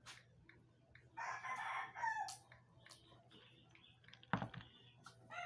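A rooster crows once, about a second in, the call ending on a falling note. Near the end comes a single knock, a plastic cup set down on a wooden table.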